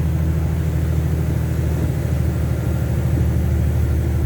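Heavy truck's diesel engine running steadily under load, a deep drone heard from inside the cab.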